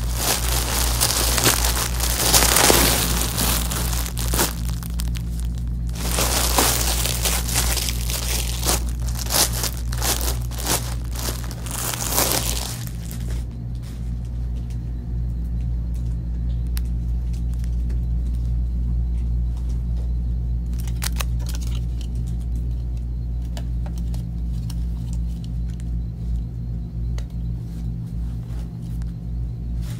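Clear plastic garment bags crinkling and rustling as clothes are pulled out of them, dense for about the first thirteen seconds and then giving way to a few light clicks, over steady background music.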